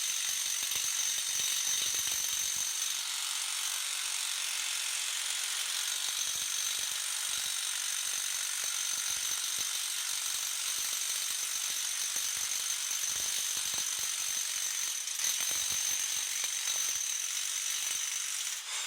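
Electric impact wrench hammering continuously on a front hub bolt, a steady rattling hammer with a high whine, run without a pause and dying away right at the end.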